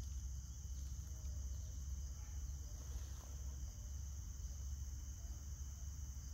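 Insects trilling in the background on one steady high note, over a low steady rumble.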